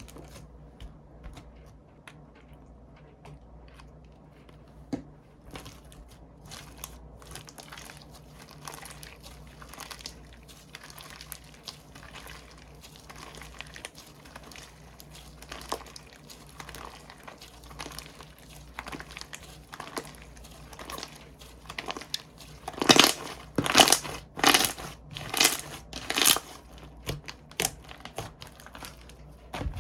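Slime being pressed and squished by hand: a steady stream of small sharp clicks and pops, with a louder run of them about three-quarters of the way through.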